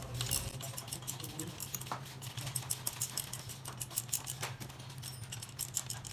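Hand ratchet with a deep socket clicking in quick light runs as the cylinder head bolts are run down, over a steady low hum.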